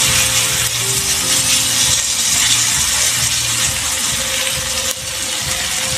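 Corn-flour paratha batter sizzling in hot oil on a non-stick pan, with a spoon spreading and scraping it across the pan surface.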